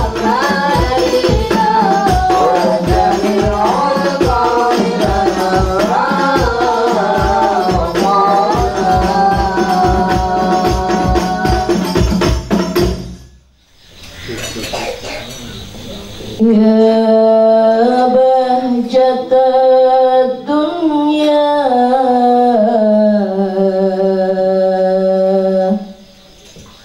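Hadroh ensemble: rebana frame drums keep a steady beat under sung Islamic devotional verses (sholawat) for about the first half, then stop. After a short lull a lone woman's voice sings a slow, ornamented unaccompanied passage.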